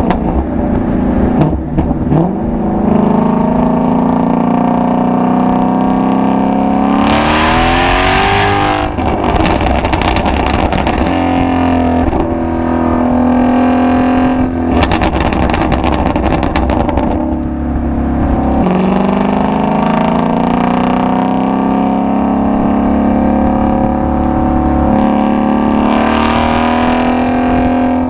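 Ford Shelby GT350's 5.2-litre flat-plane-crank V8 and exhaust pulling hard under acceleration. The engine note climbs steadily in pitch and turns harsh and bright near the top of the revs about seven seconds in and again near the end, falling back in pitch at the gear changes between.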